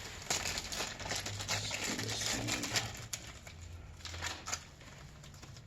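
Rustling and light clicking as small PC-build hardware and its plastic packaging are handled, over a faint low hum.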